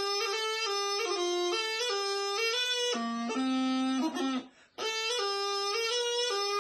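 Bagpipe practice chanter playing a reedy tune with quick note changes. About three seconds in it drops to a lower held note for about a second, breaks off briefly, then the tune starts again.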